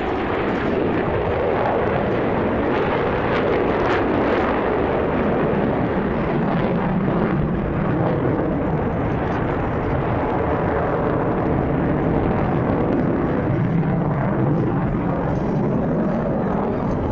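Blue Angels jet aircraft flying overhead in a smoke-trailing formation display. Their jet engines make a steady, continuous roar-like rush of noise.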